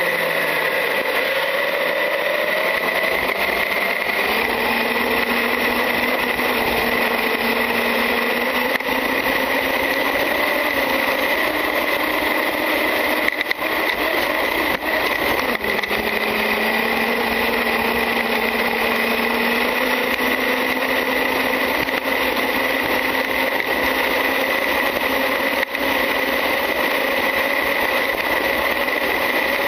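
Onboard sound of a Traxxas UDR RC truck under way: its brushless electric motor and drivetrain whine, rising and falling in pitch as the speed changes, over a steady rush of tyre and surface noise, with a constant high-pitched tone throughout. A few brief knocks come in the middle of the run.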